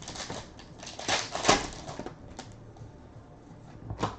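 Trading cards being flipped through by hand: soft sliding rustles and several sharp little clicks as cards snap against each other, the loudest about a second and a half in and another near the end.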